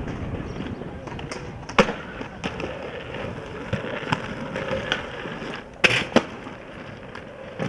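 Skateboard landing with a sharp clack, then its wheels rolling on concrete with scattered ticks. Two more loud clacks come close together about six seconds in.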